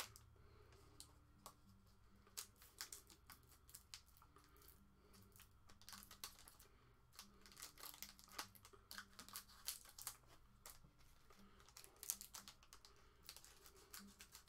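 Faint, scattered clicks and crinkles of scissors snipping open the foil wrappers of trading-card packs, and of the snipped packs being handled and stacked.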